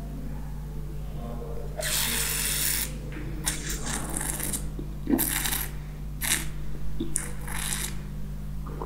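A wine taster slurping a mouthful of red wine, drawing air through it in one airy hiss lasting about a second, followed by several short breathy hisses as the wine is worked in the mouth and breathed out. A low steady hum runs underneath.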